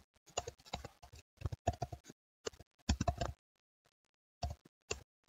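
Computer keyboard typing in short bursts of keystrokes, with a pause of about a second past the middle.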